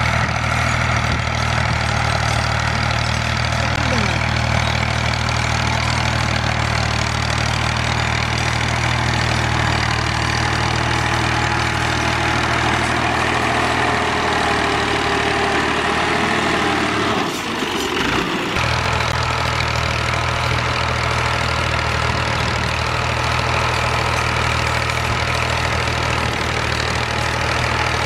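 Al Ghazi 65 HP tractor's diesel engine running steadily as it pulls a cultivator through ploughed soil. The low engine sound briefly drops away a little past halfway, then carries on as before.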